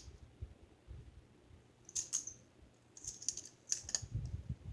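Small plastic fidget toys being handled, giving scattered light clicks and taps in short clusters.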